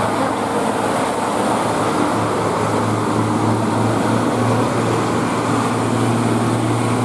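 A bus's diesel engine running steadily close by, with a low hum under a constant rush of road noise.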